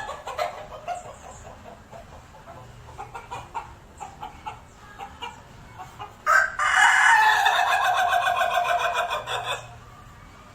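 Ayam ketawa (laughing chicken) rooster: scattered short clucks, then about six seconds in a loud crow of about three seconds made of many rapid stuttering notes, the breed's 'laughing' crow.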